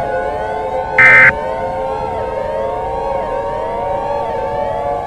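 A short, very loud screeching burst of EAS digital data tone about a second in, the last of the end-of-message bursts that close an emergency alert. Under it, layered siren tones sound steadily, one wail sweeping up and down about once a second.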